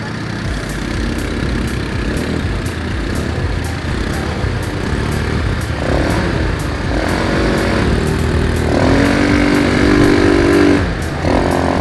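ATV engines running. From about six seconds in, a louder engine drone joins as other quads ride close by; it is loudest near the end.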